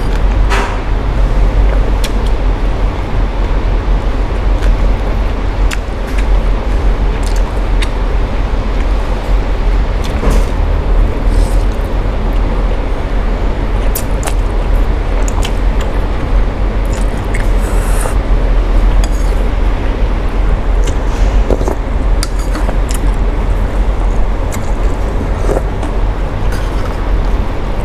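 Steady rain noise with a heavy low rumble, and scattered clinks of utensils against a bowl.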